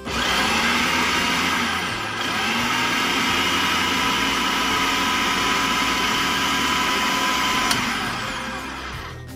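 Countertop food processor's motor running, chopping carrots, onion, mushrooms and cilantro. It starts suddenly and eases off briefly about two seconds in, then spins up again. It runs steadily and winds down near the end.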